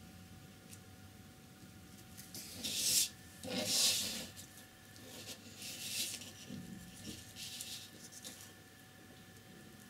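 A sheet of heavy painting paper rubbing and sliding against the table top as it is turned, with two louder scrapes about three and four seconds in, then softer rubbing.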